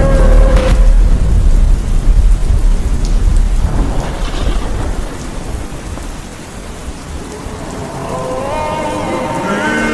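A loud low rumble that dies away over about five seconds into a steady hiss, like a thunderclap over rain; music with held notes fades in near the end.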